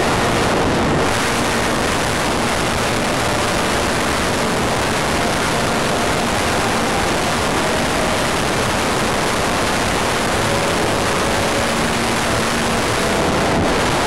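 Loud, steady rush of airflow over a camera mounted on a Wot 4 radio-controlled model plane in flight, with a faint hum from its motor underneath.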